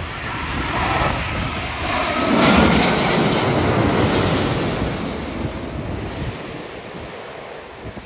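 Airbus A380's four Rolls-Royce Trent 970 turbofans on final approach passing low overhead: the jet noise swells to a peak about three seconds in with a faint falling whine, then fades away. Strong gusting wind buffets the microphone throughout.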